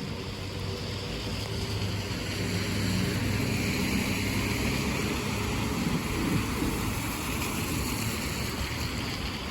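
Road traffic on a wet road: a vehicle's engine hum with tyres hissing on wet tarmac. The hiss swells to a peak around the middle and then eases as the vehicle passes.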